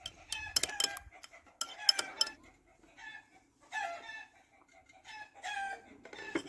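Domestic chickens calling: a string of short clucks and cackles, each call falling in pitch, with sharp clinks among the calls in the first two seconds.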